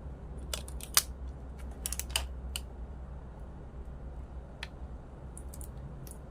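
Irregular light clicks and taps, the sharpest about a second in, over a low steady hum.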